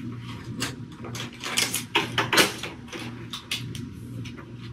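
Alcohol swab wiping down handheld plastic medical equipment and its cable: a run of short, uneven rubbing and scrubbing strokes with light plastic handling noises, over a low steady hum.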